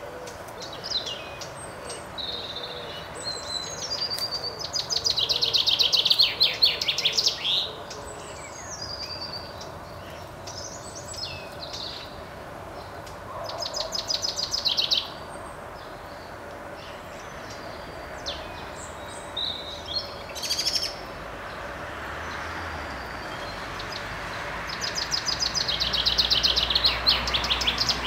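Male chaffinch singing: three full songs, each a fast run of repeated notes, about five, fourteen and twenty-six seconds in, with shorter phrases between them. A steady low background hum grows louder near the end.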